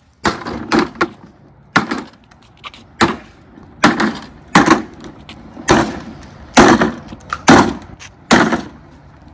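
Hammer striking the hard plastic rear wheel of a Green Machine drift trike: about ten sharp blows roughly a second apart. The wheel is so tough that it does not dent.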